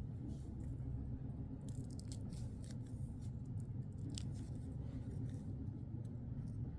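Dried homemade peel-off film being pulled off skin: a run of small crackling ticks and tearing, densest in the middle, over a steady low background hum.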